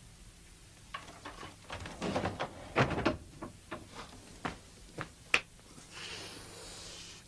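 A door being opened and handled: a run of light knocks and clatters, the loudest about three seconds in and one more a little after five seconds. A faint hiss follows near the end.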